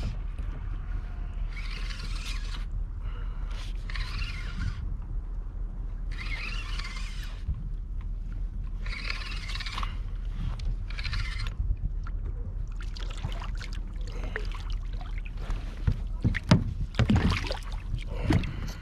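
A multiplier fishing reel being cranked in six separate bursts of about a second each, giving a high, gritty rasping; the reel is broken, in the angler's words. Near the end come several sharp clicks and knocks of handling at the reel and rod, over a steady low rumble of wind and water against the kayak.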